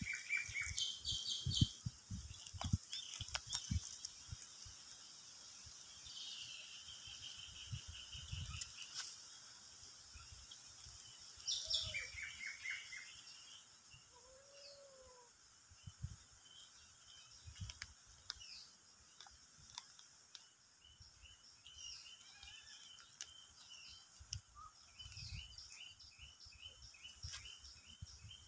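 Small birds chirping in the background, many short runs of quick repeated notes, over scattered low thumps close by. A couple of brief lower arching calls stand out.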